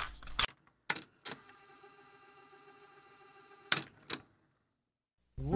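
A few sharp clicks from a small object being handled, with a faint steady hum between them; about a second of near silence follows, and music starts at the very end.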